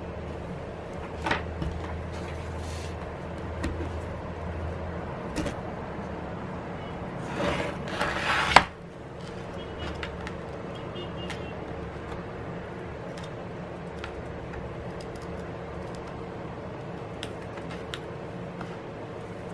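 Handling and prying noises from a plastic opening tool worked along the edge of an iPad Pro's glued screen: scattered small clicks and scrapes, then a louder scraping stretch that ends in a sharp knock about eight and a half seconds in, over a steady low hum.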